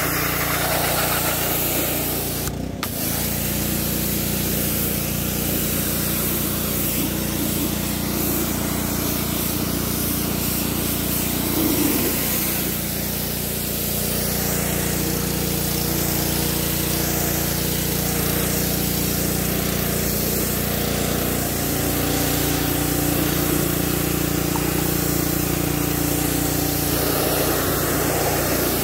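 Pressure washer running steadily: the pump's hum under the hiss of the water jet blasting a truck grille and the concrete beneath it. The sound cuts out for a moment about three seconds in.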